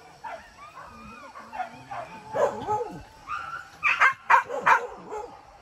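Hunting dogs barking and yelping in a ragged series of short calls, some with a whining bend in pitch, chasing a wild boar. The barks come thickest and loudest about four seconds in.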